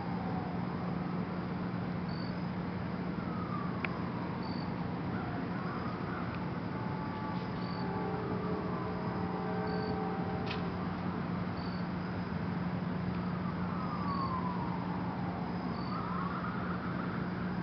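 Outdoor ambience with a steady low hum, over which a distant siren wails, sliding down and up in pitch several times. Short high chirps repeat about every two and a half seconds, with a few sharp clicks.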